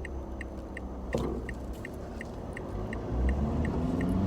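Mitsubishi Triton engine heard from inside the cab, a low rumble that grows louder and rises in pitch near the end as the ute accelerates, with the iDrive throttle controller set to Ultimate 9. The turn-signal indicator ticks steadily about three to four times a second throughout.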